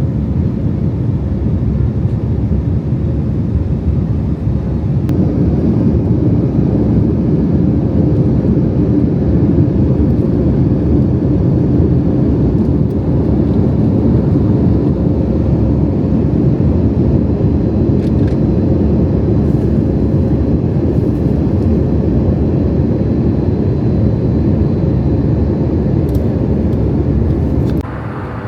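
Airliner cabin noise: the jet engines running loud and steady, rising in level about five seconds in as thrust comes up for the takeoff roll. The level drops suddenly near the end.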